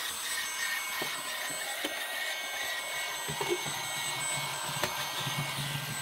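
Eyugle KK290A robot vacuum cleaner running: a steady suction-fan hiss with thin high motor whines on top and a few faint clicks.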